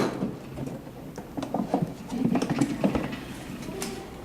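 A sharp knock, then scattered small clicks, taps and scrapes of a screwdriver and screws being handled against the machine's metal cover during reassembly.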